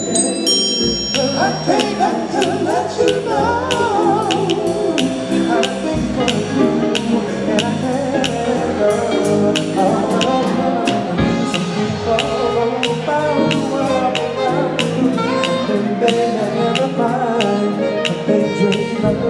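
A live band playing: electric guitar, bass and drums on a steady beat, with singing over it.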